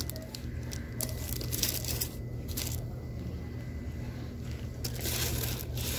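Rustling and crinkling of handled packaging, in short, irregular scrapes over a steady low hum.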